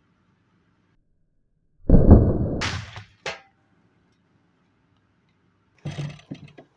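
Two loud sudden bursts from a Valken M17 high-pressure-air paintball marker firing an aluminium ball into a paintball mask on a dummy head. The first, about two seconds in, starts deep and muffled and ends in a sharper crack. The second, near the end, is a quick run of short sharp cracks.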